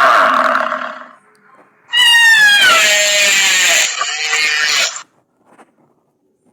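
Animal-like creature calls: one call fades out about a second in, then a cry slides down in pitch and turns into a rough, hissing roar that cuts off abruptly about five seconds in.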